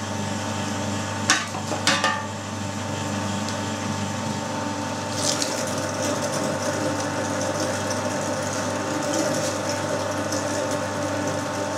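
Electric meat grinder running steadily, its motor humming as it pushes mince through a fine 2 mm plate for a second grind. Two short knocks come in the first two seconds.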